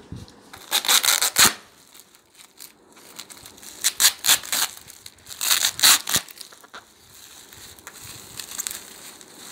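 Plastic parcel packaging, a poly mailer bag and bubble wrap, crinkling and crackling as hands handle and unwrap it. Three loud bursts of crinkling come about a second in, about four seconds in and about six seconds in, then softer rustling.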